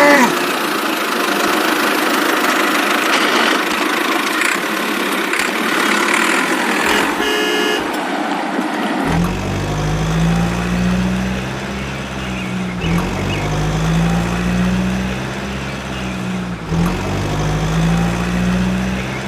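A steady rushing noise, broken about eight seconds in by a short horn toot. Then a vehicle engine starts idling with a steady low drone that dips briefly every four seconds or so.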